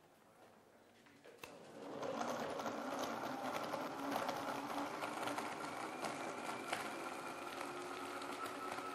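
A click, then a countertop blender motor starts about two seconds in and runs steadily, blending ice and liquid into a smoothie.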